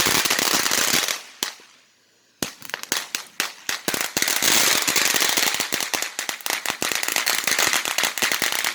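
Consumer ground firework going off: a loud rushing hiss for about a second, a brief lull, then a long, dense run of rapid crackling pops lasting about six seconds.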